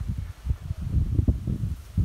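Wind buffeting the microphone in an uneven low rumble that swells and dips, with leaves rustling.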